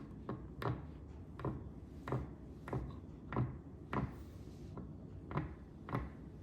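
A series of about eight light, sharp knocks, roughly one every two-thirds of a second.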